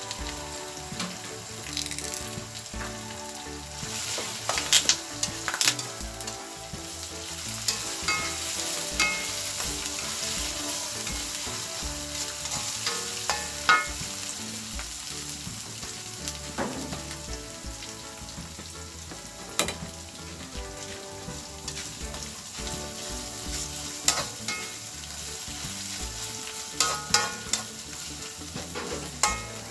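Ground spice paste and aromatic leaves sizzling in hot oil in a wok, with a steady frying hiss. A metal spatula stirs it, clacking and scraping against the pan now and then, most often around five seconds in and again near the end.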